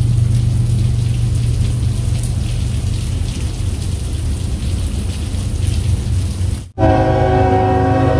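Steady low rumble with a rain hiss, then, after an abrupt cut near the end, a train's air horn sounding a steady chord of several notes.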